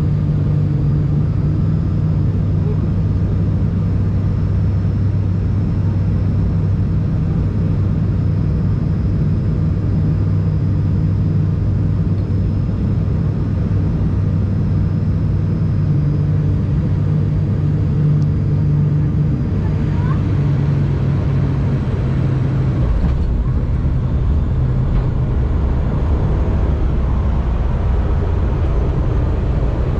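Cabin noise of an ATR 42-600 twin turboprop on final approach: the steady, loud hum and drone of the propellers and engines. About two-thirds of the way through it changes to a deeper, heavier rumble as the aircraft is on the runway.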